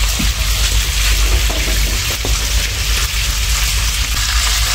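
Tap water running into a plastic bowl as vegetables are rinsed, over a steady hiss and a low rumble.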